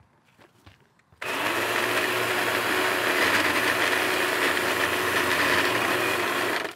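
Milwaukee M18 FUEL battery pole saw running at full speed, cutting through a tree limb. It starts abruptly about a second in, holds steady for about five seconds, and cuts off sharply near the end.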